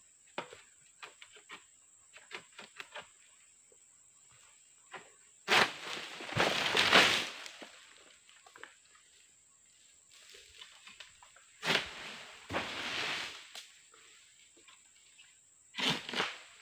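Long-handled harvesting sickle (egrek) working on an oil palm's fronds: light taps and clicks of the pole, then three loud sudden rasping cuts, each followed by a rustling tear of palm leaves. The first and longest comes about five and a half seconds in, the others about twelve and sixteen seconds in.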